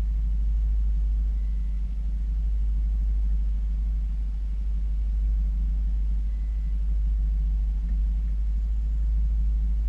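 Small outboard motor running steadily at low trolling speed: an even, low drone.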